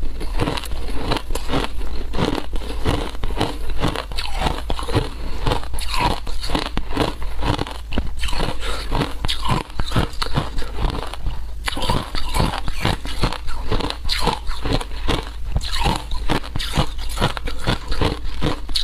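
Frozen shaved ice being bitten and chewed close to a clip-on microphone: fast, irregular crunching that goes on almost without a break, pausing briefly about eleven seconds in.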